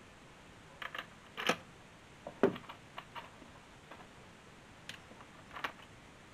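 Scattered small clicks and taps of hands handling a plastic water-softener valve housing and picking up small screws, the loudest a duller knock about two and a half seconds in.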